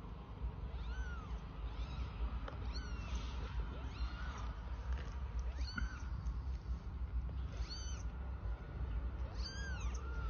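A kitten mewing: short, high-pitched mews that rise and fall, repeated about every two seconds.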